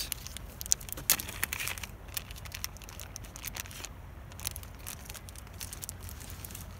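Crinkling of a small plastic tackle packet, with scattered sharp clicks, while beads are taken out for a fishing rig.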